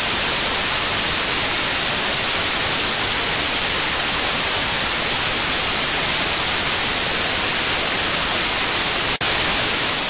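Loud, steady static hiss like white noise, with no speech or music, cutting out for an instant about nine seconds in.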